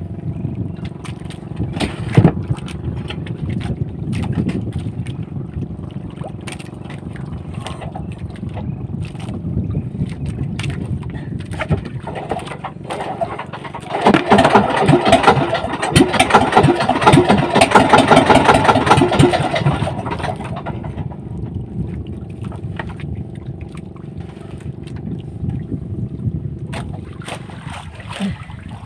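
Small fishing boat's engine running steadily, with a louder stretch of rapid clattering noise lasting about six seconds midway through.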